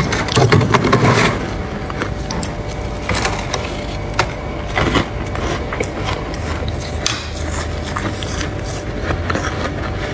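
A spoon scraping through thick, soft freezer frost, a dense scratchy crunching for about the first second, then quieter scattered scrapes and crunches of the frost.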